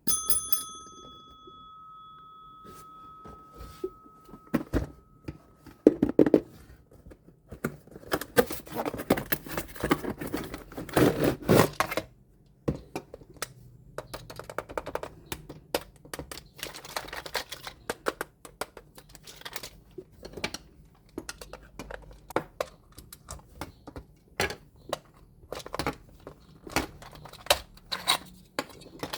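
Toy packaging being unboxed: a ringing tone over the first few seconds, then plastic packaging crinkling and tearing, then a long run of sharp clicks and taps as hard plastic and die-cast toy parts are handled.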